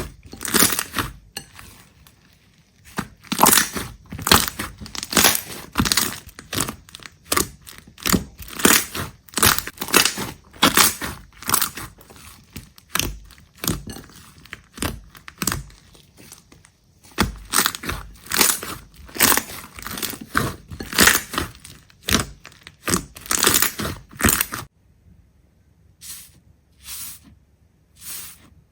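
Crisp crunching and crackling, many short sharp strokes a few times a second, from something brittle being broken up. About three-quarters of the way through the strokes stop, leaving only three or four isolated ones.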